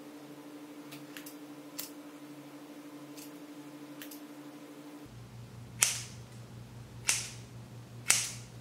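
Scissors cutting through a lock of hair. A few faint clicks come first, then three sharp snips about a second apart in the second half.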